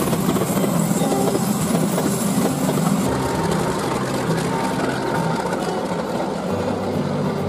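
Diesel-hauled train running past on the track, its wagons rolling steadily.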